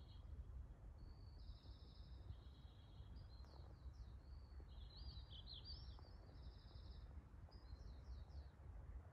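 A small songbird singing short, high, trilling phrases, about three songs a few seconds apart, over a faint, steady low rumble.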